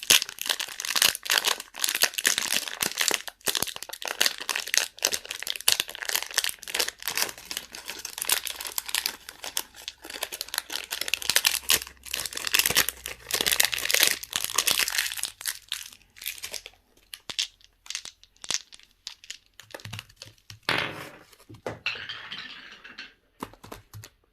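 Plastic candy wrapping being crinkled and torn open by hand, a dense run of crackling that thins out in the second half and ends with a short last rustle.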